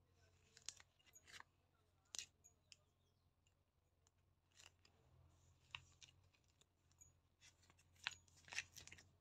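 A plastic courier mailer being handled and opened by hand, giving faint, irregular sharp crackles and crinkles, busiest near the end, over a faint steady low hum.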